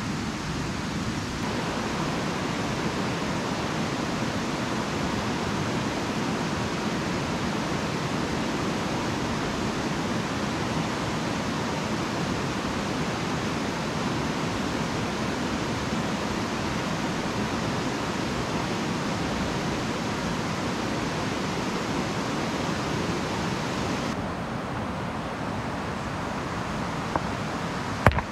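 Steady rush of a flooded river over rocky rapids, turning duller a few seconds before the end, with a single sharp knock near the end.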